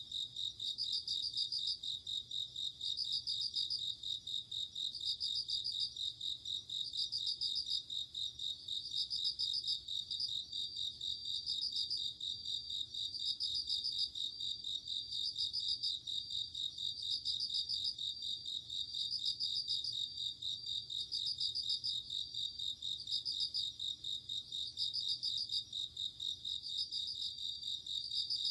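Japanese bell crickets (suzumushi) and other crickets singing: a continuous high trill with a pulsed chirp repeating about every two seconds.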